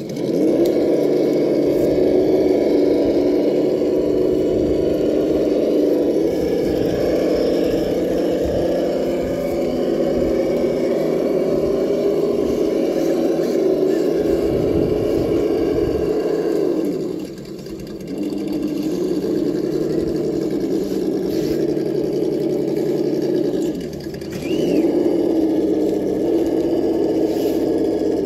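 Electric motor and geared drivetrain of a Traxxas TRX-4 RC crawler truck whining as it creeps along, the pitch wavering up and down with the throttle. The whine drops away briefly twice, about two-thirds of the way in and again near the end, then picks back up.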